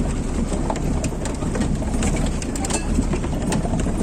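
Heavily loaded vehicle driving down a rough mountain track: a steady low rumble with many rattles and knocks from the load and body jolting over the rocks.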